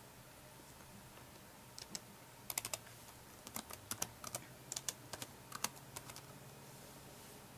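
Typing on the IBM ThinkPad R51's laptop keyboard: runs of quick, irregular keystrokes starting about two seconds in and stopping about six seconds in.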